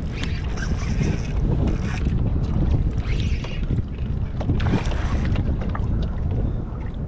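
Wind buffeting the microphone on open water, a steady low rumble, with a few faint clicks scattered through.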